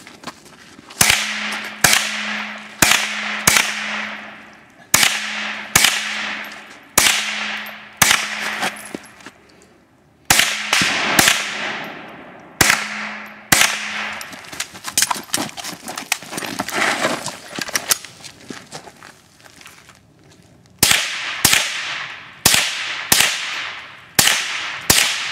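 GSG-5 .22 LR semi-automatic rifle firing a long string of single shots, roughly one every half second to second, each crack followed by a short echoing tail. There is a pause of a few seconds in the second half, then a quick final string near the end.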